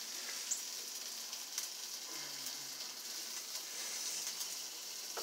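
Sausage links sizzling on a George Foreman electric grill: a steady hiss with scattered pops and crackles.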